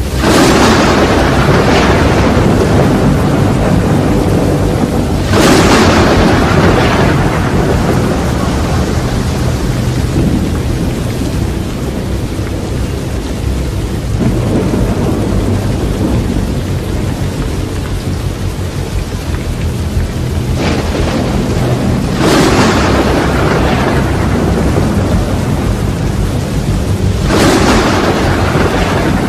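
Wind buffeting the phone's microphone in a deep, steady rumble over the wash of breaking surf. Four louder rushing surges come and go: one just after the start, one about five seconds later, and two more near the end.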